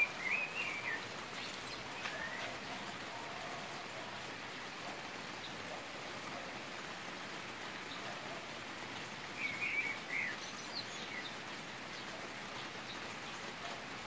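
Steady rain shower falling on a garden, an even hiss throughout. A bird's short warbling call rises above it near the start and again about two-thirds of the way through.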